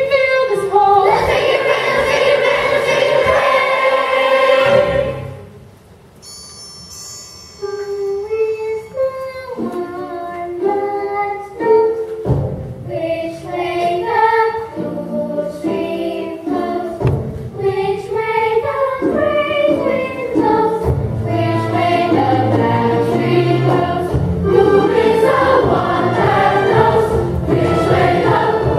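A mixed chorus of children and adults singing an opera finale with accompaniment. A loud held chord fades out about five seconds in, a brief high tinkling follows, then the choir comes back in and grows fuller toward the end.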